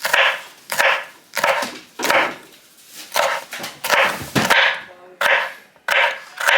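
Kitchen knife slicing through bell peppers onto a cutting board, with a crisp crunch on each stroke, about one and a half strokes a second.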